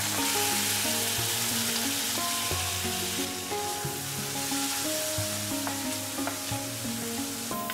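Pieces of pressure-cooked beef sizzling as they fry in plenty of hot oil on a dished iron sheet, stirred and spread with a wooden spoon. The sizzle eases a little about three seconds in.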